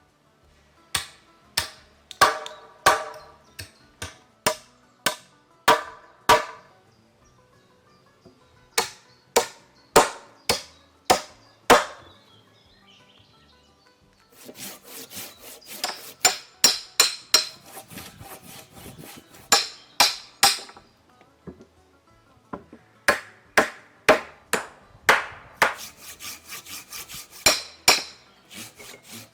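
A hand tool striking wood again and again, in sharp, ringing blows at an uneven pace, then a short pause and a faster run of blows mixed with scraping, then more single blows.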